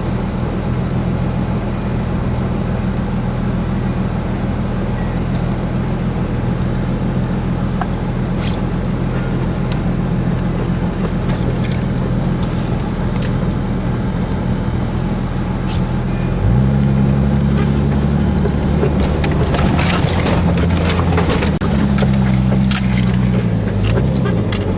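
Off-road 4x4 engine running steadily, heard from inside a vehicle's cab. About two-thirds of the way through the sound changes, and an engine revs up and down several times, with rattling clicks over it.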